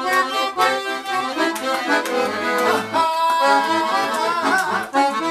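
Piano accordion and violin playing a tune together; about three seconds in, a man's voice joins, singing a long held note over them.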